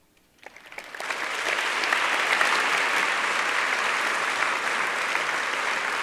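Audience applauding: a few scattered claps about half a second in, swelling within a second into steady, full applause.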